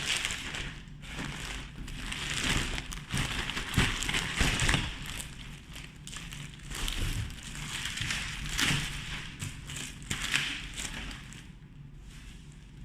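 A package's packaging being opened by hand: irregular rustling and crinkling with a few sharp crackles and tears, easing off near the end.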